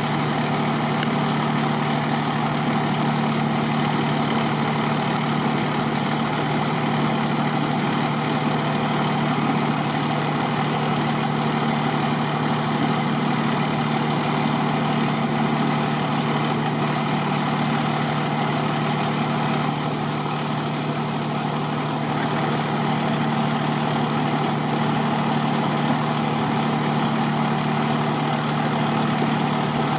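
Large diesel engine of a fire truck idling, a steady low hum with an even rush over it.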